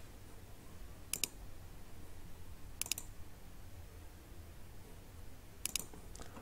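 Faint clicks of a computer mouse and keyboard, in three short groups of two or three quick clicks: about a second in, near three seconds and near the end. A low room hum runs underneath.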